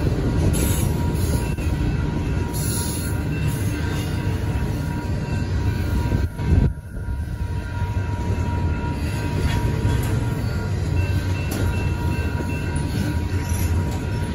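Double-stack intermodal freight cars rolling past at a grade crossing: a steady rumble of wheels on rail with thin, steady high squeal tones from the wheels. A brief loud thump about six seconds in.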